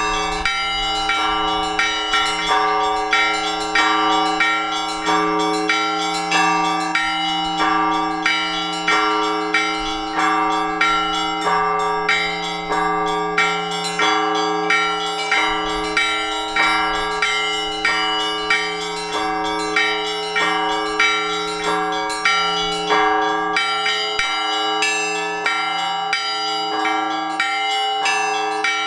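Orthodox church bells rung by a bell-ringer from the belfry: a steady rhythm of strikes on several smaller bells over the long, sustained hum of the larger bells.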